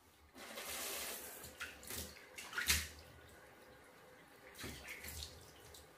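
Water splashing in a bathtub as a small dog is washed, with a hissing rush in the first two seconds and a brief sharp hit, the loudest sound, about two and a half seconds in, then a few smaller splashes near the end.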